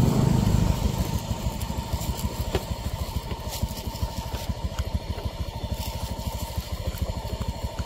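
A small engine running steadily with a fast, low putter, a little louder in the first second.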